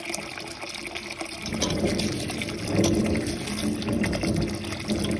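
Tap water pouring into a steel bowl of ambarella fruit and splashing over them as they are rinsed, growing louder about a second and a half in.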